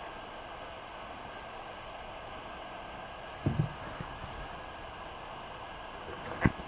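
Butane gas soldering iron hissing steadily while a wire joint is soldered. There are a couple of low handling knocks about halfway and a sharp click near the end.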